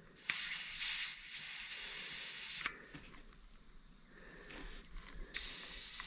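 Air hissing out of the valve of a tubeless 700c x 50 mm gravel tyre in two bursts, the first about two seconds long and the second starting near the end, with a thin whistle in the hiss. The air is being let out to lower a front tyre pressure that felt too firm.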